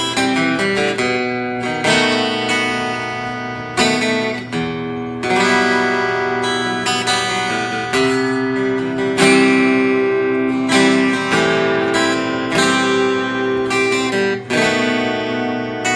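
Two acoustic guitars playing a song live, strummed and picked chords struck about once a second with the notes ringing between them.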